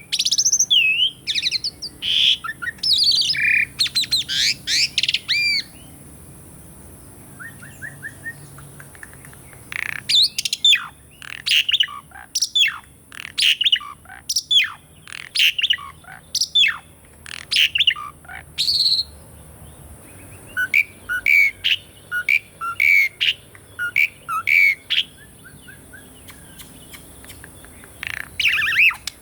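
Pied starling (jalak suren) singing in bursts of loud whistles, squawks and chattering notes. A dense run of sharp, falling whistled notes comes in the middle. Short lulls fall about a third of the way in and again near the end.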